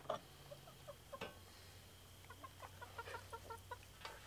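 Chickens clucking faintly: a few scattered clucks, then a quick run of short clucks in the second half.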